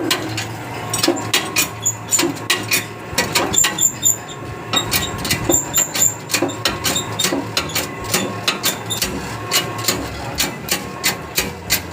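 Rapid, irregular knocking: many sharp strikes, several each second, over a steady background.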